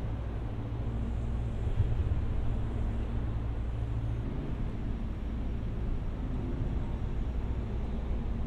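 Freight train locomotive running with a steady low rumble and hum, and one brief louder knock a little under two seconds in.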